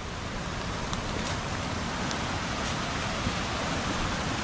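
Steady rushing of a flooded, rain-swollen creek: an even, unbroken water noise.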